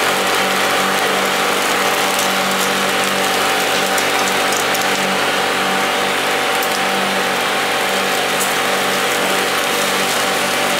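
Ground-meat kebabs on flat skewers sizzling over a charcoal grill, a steady hiss with a few light pops, over a constant mechanical hum.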